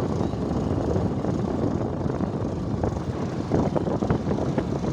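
Car driving along, a steady low engine and road rumble, with a few light knocks about three and a half seconds in.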